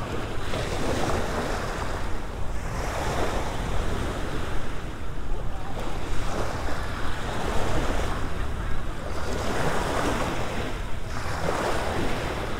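Small waves breaking and washing up on a sandy shore, the surf swelling and fading every two to three seconds, with a low rumble of wind on the microphone.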